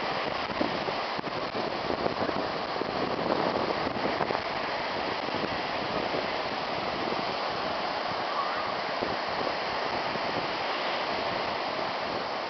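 Ocean surf breaking and washing up the beach: a steady, even wash of waves.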